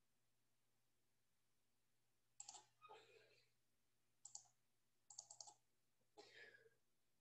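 Faint clicks at a computer: a single click, another a couple of seconds later, then a quick run of three or four clicks, with soft rustles between, all over near silence.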